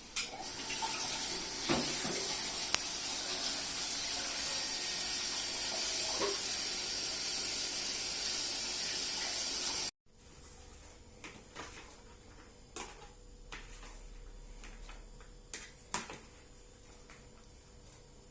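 Water running steadily from a tap into a sink, stopping abruptly about halfway through. A much quieter background with scattered light clicks and knocks follows.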